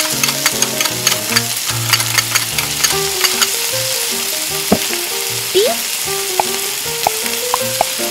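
Oil sizzling steadily in a miniature steel wok with chopped onion and dried herbs. A small metal fork ticks and scrapes against the pan, quickly in the first few seconds and only now and then after. A soft background music melody plays underneath.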